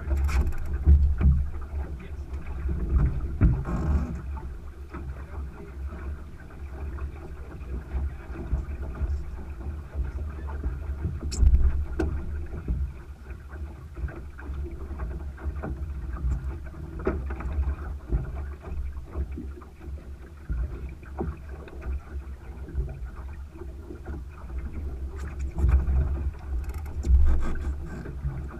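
A Thistle sailing dinghy under way: water rushing along the hull and wind buffeting the microphone in a constant low rumble, with occasional clicks and knocks of rigging and gear.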